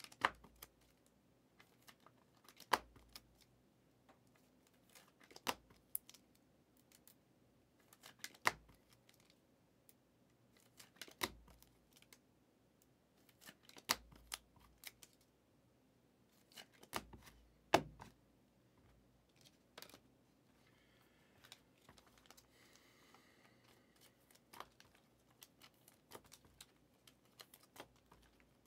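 Trading cards being handled and set down one at a time onto a stack: a sharp click roughly every three seconds, with softer taps and card rustles between.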